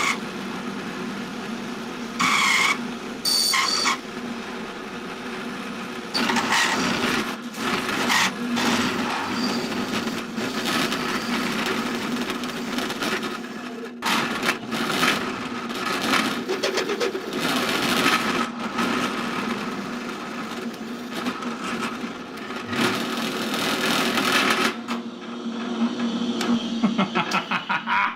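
Drill press running at high speed with a flat-ground driver bit pressed down hard onto a small steel washer, metal grinding on metal in uneven bursts over a steady motor hum as the parts heat up for a friction weld.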